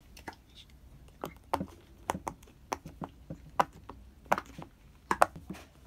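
Silicone bubbles of a pop-it fidget toy pressed in one after another with the fingers: a string of short sharp pops at an uneven pace, about two a second.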